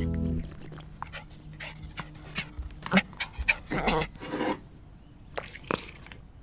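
Dog-like panting in quick, irregular breathy huffs, followed near the end by a couple of light clicks of a plate set down on a table.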